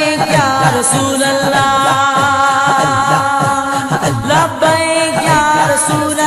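A singing voice holds long, ornamented notes of an Islamic devotional naat over a low, steady pulsing beat.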